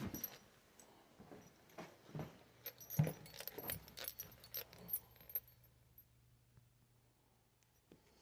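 Light metallic clinking and jingling with scattered taps and clicks, as of small metal tools or hardware being handled, thinning out after about five seconds; a low steady hum sets in about two seconds in and stops near the end.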